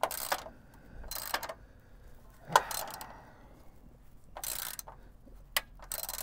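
Hand socket ratchet clicking in short bursts, about five back-swings, as a bolt is run in. One sharp metal knock comes about two and a half seconds in.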